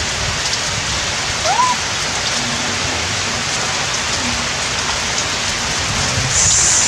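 Steady rain falling and pattering on surfaces, an even dense hiss. A short rising squeak is heard about a second and a half in.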